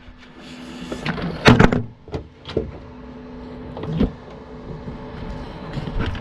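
Several sharp knocks and clunks, the loudest about a second and a half in, over a steady low hum.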